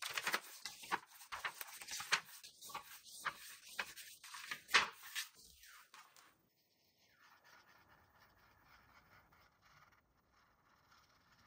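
Paper pages of a paperback coloring book being turned and handled, a quick run of rustles and flaps. After about six seconds this stops and only a faint hiss remains.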